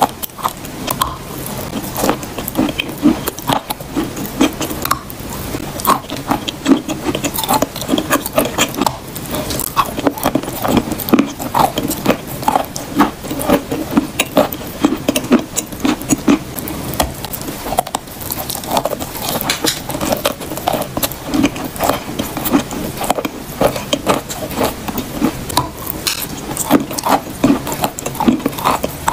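Close-miked chewing of a bite of edible chalk: dense, sharp crunching clicks, several a second, without pause.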